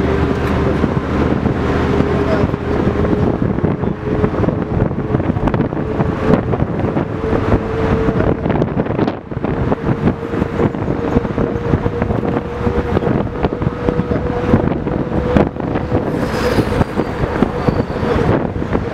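LiAZ-677M bus under way, heard from inside the cabin: its V8 petrol engine running with road noise, wind noise and many small knocks, and a steady whine throughout.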